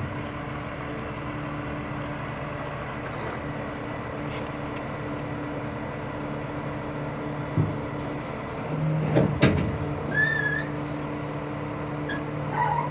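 Hydraulic system of a Trail King lowboy trailer running with a steady low hum as the front of the deck is lowered to the ground. Metallic clunks come about 7.5 and 9 seconds in, and birds chirp near the end.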